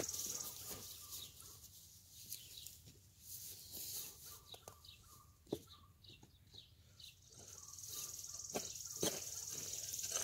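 Birds singing outdoors: short high chirps throughout, with a long high buzzing trill at the start and again over the last few seconds, plus a few sharp ticks.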